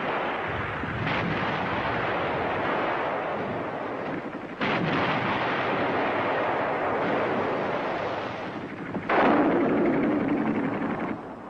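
Battle soundtrack of gunfire and explosions: a dense, continuous rumble of shooting with sudden blasts about a second in, about four and a half seconds in and, loudest, about nine seconds in.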